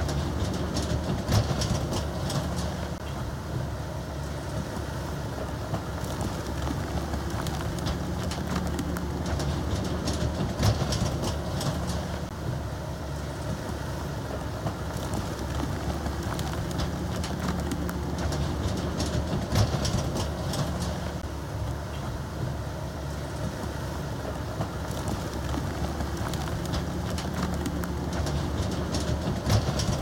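Komatsu D65E bulldozer's diesel engine running steadily, with bursts of metallic clatter about every nine seconds.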